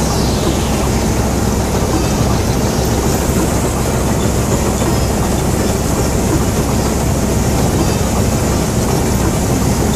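4x4 combine harvester running steadily under load while cutting standing crop, engine and cutting machinery heard from the operator's seat.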